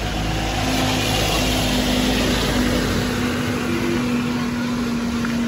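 A motor vehicle's engine running close by with a steady low hum, over a dense hiss of traffic on the wet road that swells about two seconds in.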